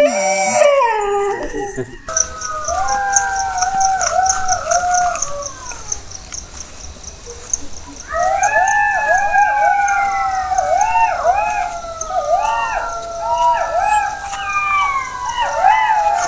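Dogs howling at night: one long wavering howl, then from about eight seconds several dogs howling together in overlapping, wavering calls. It opens with the tail of a wailing glide that cuts off about two seconds in, and a faint, evenly repeating high chirp runs underneath.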